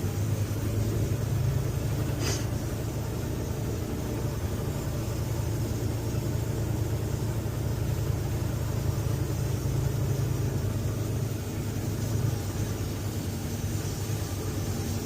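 Semi truck's diesel engine running steadily with a low rumble, with one short click about two seconds in.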